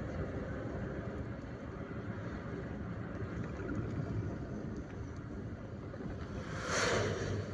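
Steady engine and tyre noise heard from inside a moving car's cabin. Near the end, a brief loud whoosh swells and fades as an oncoming truck passes close by.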